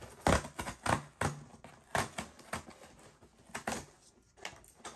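Irregular sharp clicks and taps, about a dozen spread unevenly, from a shipping package being handled and opened.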